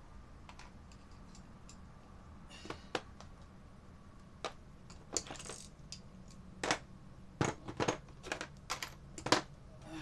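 Irregular clicks and knocks of hand tools and parts being worked against the clothes dryer's metal cabinet during reassembly. A few faint ticks at first, then a busier run of sharper taps, the loudest knock near the end.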